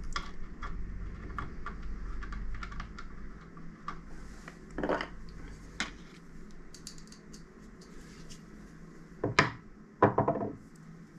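Light clicks and taps of hands and a screwdriver working on a Rega Apollo CD player's transport as it is screwed back down onto its suspension. A few louder bumps come about halfway through and twice near the end.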